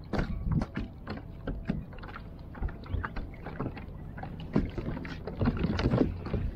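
Water slapping and splashing against a kayak hull in irregular knocks, over a low steady rumble.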